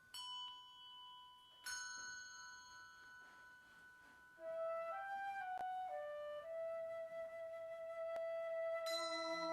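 Instrumental church music: two struck, bell-like notes ring out and fade, then a slow melody of long held notes on a flute-like instrument begins, with more struck notes near the end.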